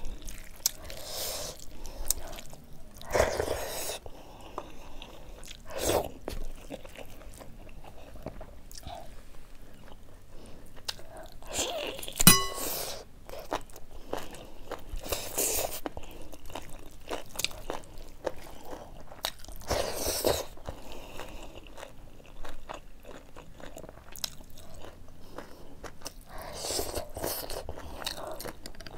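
Close-up eating sounds: chewing and biting into buffalo meat curry and rice, with irregular crunchy clicks and wet squelches as rice is mixed by hand on a steel plate. One sharp, ringing metallic clink stands out about twelve seconds in.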